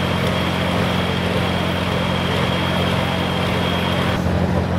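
Turbocharged Super Stock/Pro Stock pulling-tractor engine idling steadily at the end of a pull, with a thin high whine over it that cuts off near the end.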